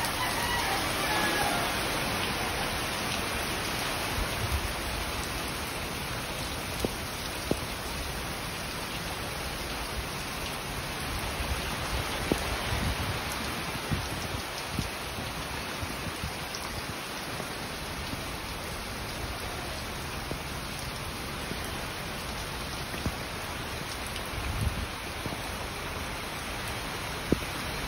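Steady heavy typhoon rain falling on wet ground and standing floodwater, with a few sharp taps now and then.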